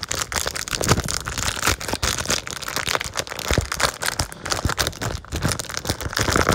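Plastic packaging rustling and crinkling in the hand as a drywall anchor is picked out of a curtain-rod hardware package, a steady run of irregular crackles.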